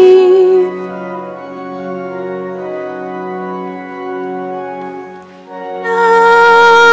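Sacred hymn at Mass: a cantor's held sung note ends just after the start, a quieter sustained organ accompaniment carries on alone, and the singing comes back in with a long held note near the end.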